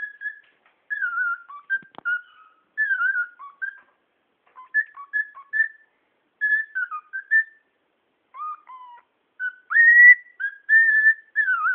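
Cockatiel whistling a tune in short, broken phrases of clear notes that slide up and down, with a louder rising whistle held for a moment about ten seconds in.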